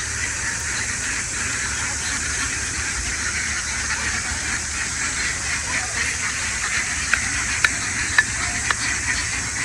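Steady outdoor background noise: a continuous hiss over a low rumble, with a few sharp clicks about seven to eight seconds in.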